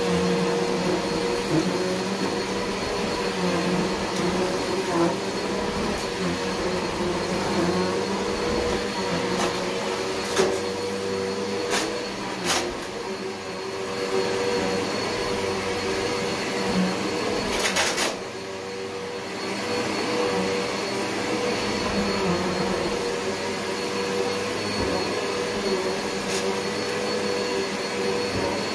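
Bissell PowerGlide vacuum cleaner running steadily over carpet with a constant motor hum. A few brief clicks and knocks come through, and the level drops for a moment about two-thirds of the way in.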